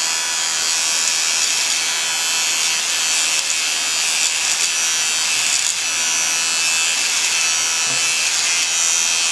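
Boteng Kemei electric shaver running steadily, its side trimmer blade cutting through mustache hair, a constant high buzz.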